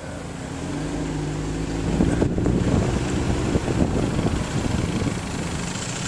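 A motor vehicle engine running: its hum grows louder over the first two seconds, then holds steady.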